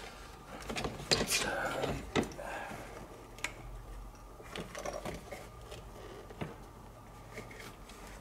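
Scattered small clicks, knocks and rattles of hands working wiring and connectors behind a classic Mini's instrument cluster, the sharpest in the first half, over a low steady hum.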